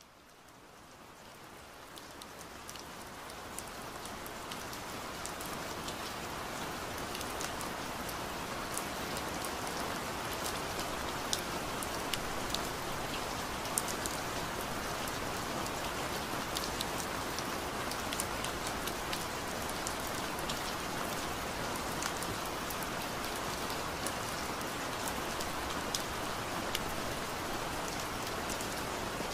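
Steady rain falling, with sharp single drops ticking through it. It fades in over the first few seconds, then holds level.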